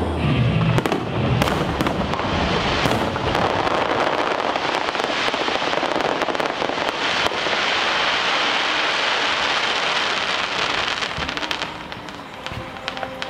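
Aerial fireworks going off: a dense, continuous crackling of many small pops with a few louder bangs in the first few seconds, swelling in the middle and dying away near the end.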